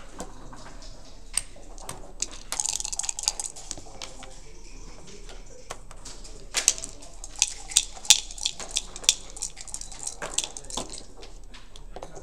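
Backgammon dice and checkers clacking on the board: dice rattle to a stop early on, then a rapid series of sharp clacks from about six seconds in to near the end as checkers are picked up and stacked while bearing off.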